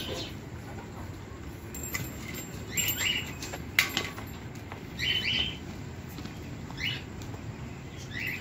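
Goat kids feeding from a steel bowl of bran and chaff: a steady low rustling and nibbling, with a sharp click about four seconds in. Short bird chirps come a few times.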